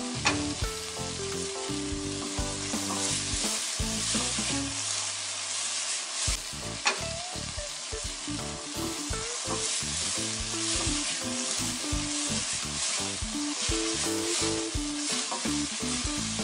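Chopped onion, tomato and coriander leaves sizzling in hot oil in a stainless steel pan, stirred with a silicone spatula that scrapes and taps against the pan. There is a steady sizzle with a few sharp taps, the clearest just after the start and about seven seconds in.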